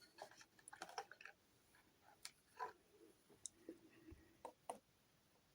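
Faint, scattered clicks and taps of small miniature figures and parts being handled and set down, a quick run of them in the first second and a half, then single clicks spaced out.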